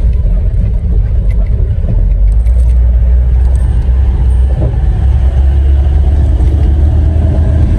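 Loud, steady low rumble of a vehicle's engine and wheels on a rough dirt track, heard from inside the cabin, growing a little heavier about two seconds in.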